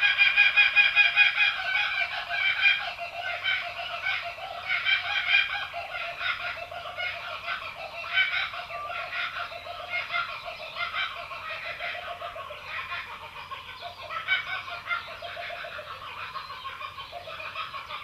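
Laughing kookaburra call: a long rolling laugh of rapid repeated notes, loudest near the start and fading gradually.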